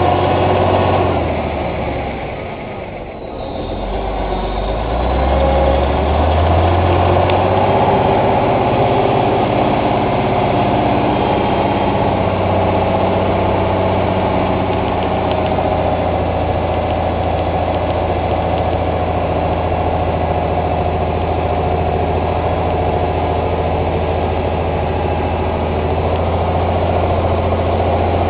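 Dump truck's diesel engine running steadily as the truck creeps forward while dumping its load of dirt. About two seconds in the engine drops off briefly, then picks back up with a rising pitch and runs steadily again.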